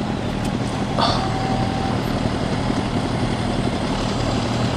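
Motorcycle engines idling steadily at a standstill, with a brief faint tone about a second in.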